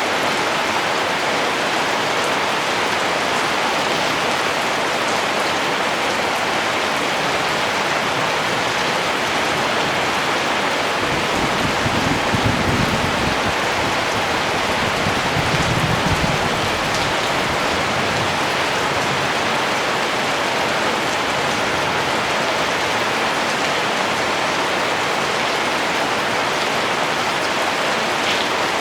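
Steady rain falling: a dense, even hiss. Twice around the middle a brief low rumble rises under it.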